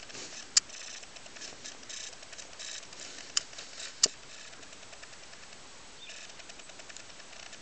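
Camera handling noise while panning: a faint scratchy rustling with three sharp clicks, one about half a second in and two close together a little past three seconds.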